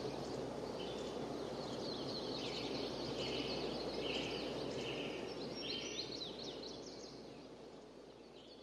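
Birds chirping repeatedly over a steady outdoor hiss, fading out over the last couple of seconds.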